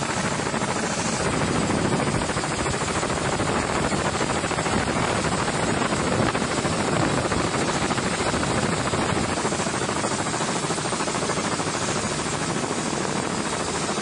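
Helicopter running steadily, heard from on board: a fast rotor beat over a rush of wind noise that holds at an even level throughout.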